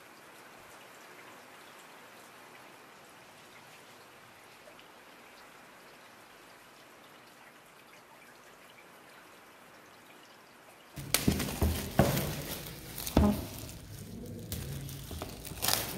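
Faint steady hiss, then about eleven seconds in, loud irregular crinkling and crackling of clear plastic shrink-wrap film being peeled off a phone box and bunched up by hand.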